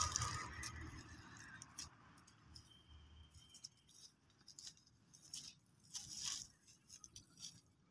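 Pruning of dormant grapevines: a sharp snip at the start, then faint, scattered clicks and rustles of dry canes and leaves being handled and brushed.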